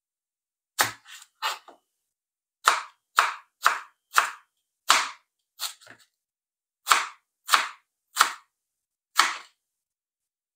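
Chef's knife slicing a red onion on a plastic cutting board: about a dozen sharp knocks of the blade striking the board, unevenly spaced, roughly one every half second to a second.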